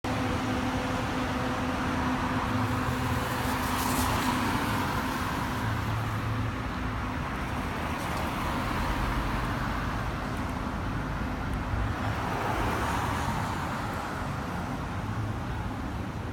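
Road traffic going by: a steady wash of car noise under a low engine hum, swelling as vehicles pass.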